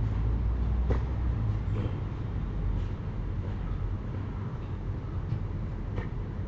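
A steady low rumble, heaviest in the first second or so, with a few faint knocks scattered through it.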